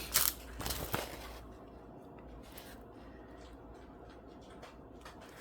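Small plastic packets of diamond-painting drills crinkling as they are handled, with a few sharp rustles in the first second, then only faint small handling noises over quiet room tone.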